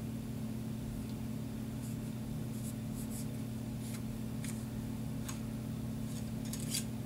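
Faint, short scratchy strokes of a cleaning patch rubbing through a Glock 19 barrel, several in a row, starting about two seconds in, over a steady low hum.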